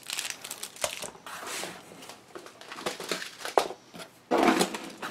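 Plastic packaging crinkling and rustling as craft supplies are handled, with small clicks and knocks, and a louder rustle about four seconds in as hands rummage in a cardboard box.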